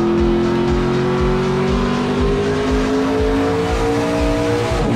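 V8 engine of a Toyota Camry ARCA stock car at racing speed, heard from inside the car. Its note climbs steadily as the car accelerates down the straight, then drops sharply near the end as the driver lifts for the turn.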